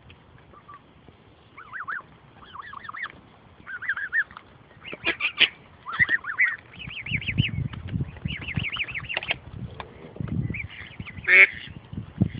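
Goslings peeping: many short, high, arching calls in quick runs, overlapping as several birds call at once. A louder, harsher call comes near the end, and there are a few low rumbles in the second half.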